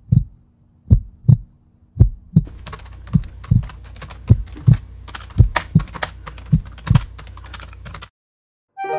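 Heartbeat sound effect: slow double thumps about once a second. From about two and a half seconds in, rapid computer-keyboard typing clicks join it, and both cut off about a second before the end.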